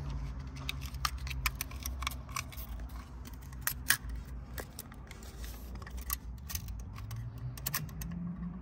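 Irregular metallic clicks and ticks of a wrench turning the threaded adjustment collar on a rear H&R coilover, raising the car's ride height, under a low steady hum.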